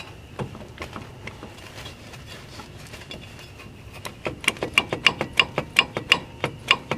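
Ratchet wrench clicking as it is worked on the wheel hub's mounting bolts. Scattered faint clicks at first, then about four seconds in a quick, even run of sharp metallic clicks, about four or five a second.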